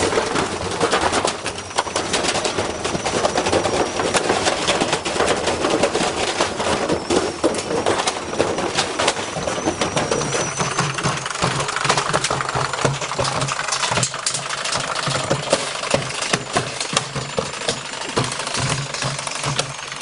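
Front-loading washing machine on spin, thrown badly off balance by a heavy load, tearing itself apart: the still-driven drum bangs and clatters against its frame, the pallet and the ground in a dense run of knocks. From about halfway a steady low hum with a pulsing beat comes up as the loose drum keeps turning.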